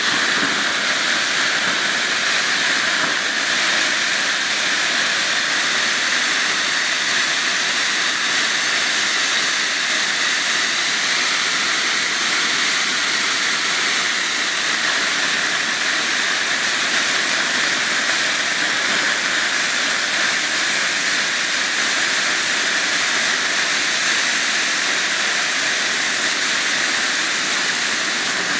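Several Pyroshine GF01 ground fountain fireworks burning together, giving off a steady, loud spark-spraying hiss.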